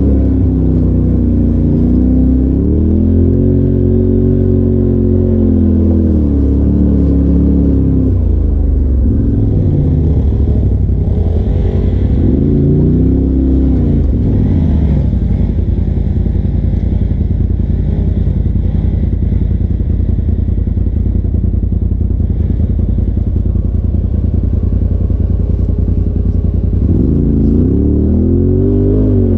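Turbocharged Polaris RZR side-by-side's engine pulling up a rocky trail, revving up and easing off several times, with a steadier low-rpm run in the middle stretch.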